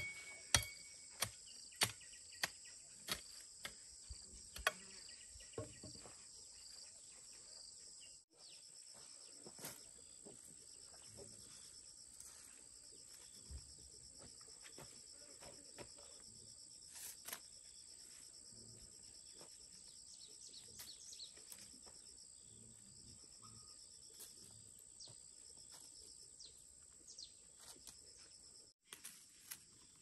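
A hand hoe chopping into the soil of a garden bed, struck in a steady rhythm about one and a half times a second for the first six seconds. Then a steady high chorus of insects, with scattered soft rustles and taps.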